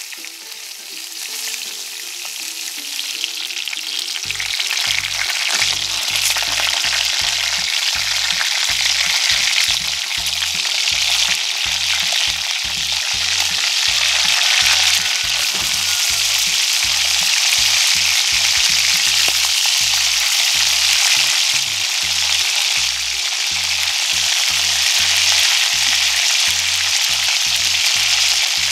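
Pork belly pieces frying in hot oil in a pot, sizzling as they brown and render out their fat, with the occasional scrape as they are turned with tongs. The sizzle builds over the first few seconds and then stays loud and steady.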